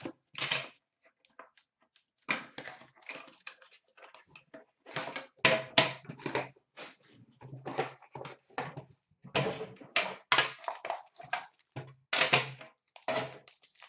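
Packaging of an Upper Deck Premier hockey card box being opened by hand: a run of irregular rustles, scrapes and clicks from cardboard and a metal tin, with a foil pack wrapper crinkling and tearing near the end.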